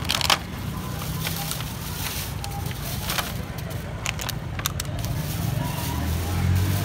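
Thin plastic bags crinkling and rustling in bursts as filled soup bags are handled and put into a larger plastic carrier bag, over a steady low rumble.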